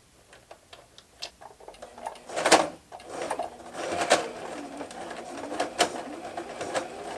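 Brother domestic sewing machine starting up after a few handling clicks and a sharp click, then running steadily with a repeated clatter from about three seconds in. It doesn't sound good: the top thread has no tension.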